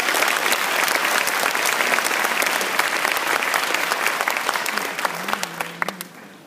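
Auditorium audience applauding, many hands clapping. The clapping thins out and dies away near the end.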